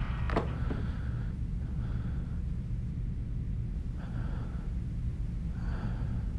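A person breathing heavily, several slow breaths a second or two apart, over a steady low rumble. A sharp click comes shortly after the start.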